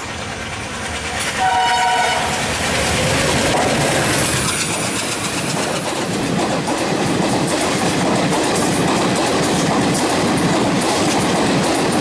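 A diesel locomotive horn sounds once, briefly, about a second in. Then comes the loud rush and rhythmic wheel clatter of a passenger train's coaches passing close alongside on the next track.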